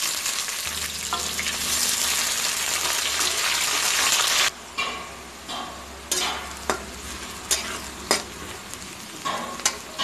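Sliced onions sizzling loudly in hot oil in an iron kadai. After about four and a half seconds the hiss cuts off suddenly and returns quieter as the onions soften, with a handful of sharp clinks and scrapes of a metal spatula stirring against the pan.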